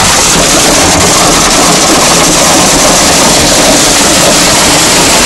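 Heavy hail pelting down, a dense, steady clatter with no let-up.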